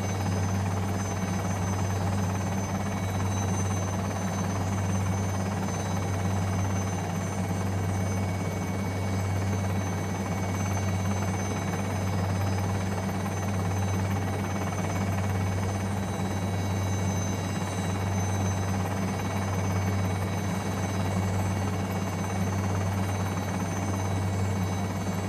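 Helicopter rotor and engine running steadily: a continuous low drone with a steady high-pitched whine above it.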